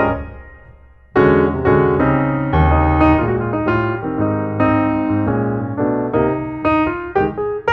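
Background piano music: a phrase dies away over the first second, then a run of notes starts up again and carries on.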